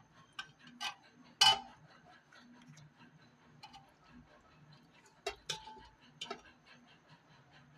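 A kitchen utensil clinking and knocking against a cooking pot or dish: a handful of short, sharp, irregular knocks, the loudest about a second and a half in and two close together a little past five seconds.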